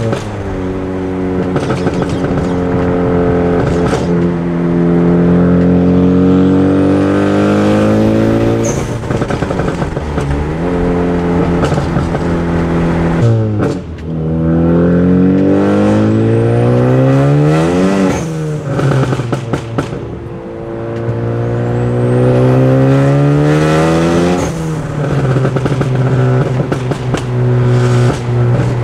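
Ford Focus ST's turbocharged four-cylinder engine heard from inside the cabin, pulling hard through the gears: the engine note climbs in pitch, then falls back at each upshift, several times over, with a faint rising whistle as it builds.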